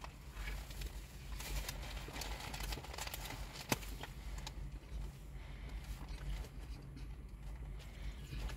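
A person chewing a mouthful of doner kebab in naan, with scattered small wet mouth clicks and one sharper click a little before the middle. A steady low hum runs underneath.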